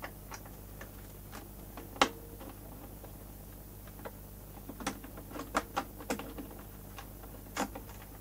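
Scattered small clicks and taps of a screwdriver working the screws at the back of the Grundig Video 2x4 Super recorder's metal lid. The sharpest click comes about 2 s in, and a quick run of clicks follows a few seconds later.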